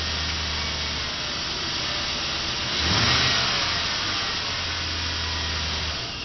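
1999 GMC Sierra pickup's engine running, briefly revved about three seconds in and then settling back. It is warming up after a cold start, with a knock the owner takes for piston slap.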